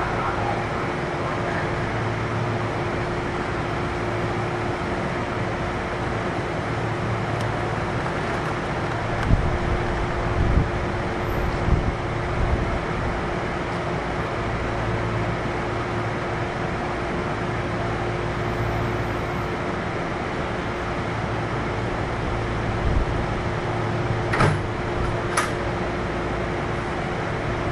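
Kintetsu 1233 series electric train standing at a station with its equipment humming steadily and a constant mid tone. A few low thumps come about ten seconds in, and two sharp knocks about a second apart come near the end.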